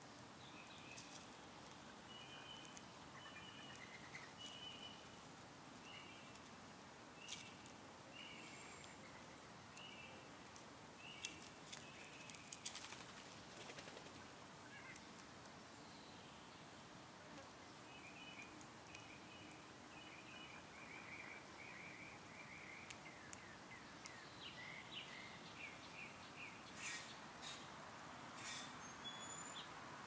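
Faint chirping of backyard birds: short high notes repeated in loose series, with a quicker run of notes in the second half. A few sharp ticks stand out, the loudest near the middle.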